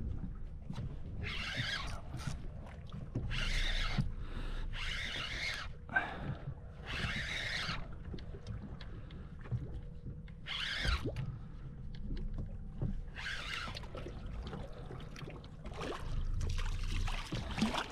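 Water slapping and splashing against a boat's hull in irregular bursts every second or two, over a steady low rumble of wind and sea.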